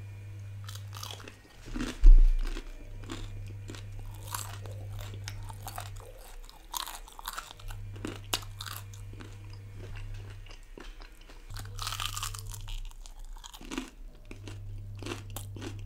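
Crunching and chewing of a deep-fried mutton crunchy momo: short crisp cracks of the fried coating breaking between the teeth, with a low thump about two seconds in.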